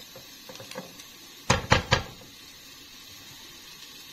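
A wooden spatula scraping lightly in a stainless steel cooking pot, then three quick, loud knocks of the spatula against the pot about one and a half seconds in.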